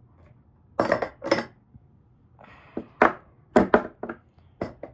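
Hard objects clinking and clattering as someone rummages for a tool: a string of sharp, separate clinks, with a short scraping rustle just before the middle.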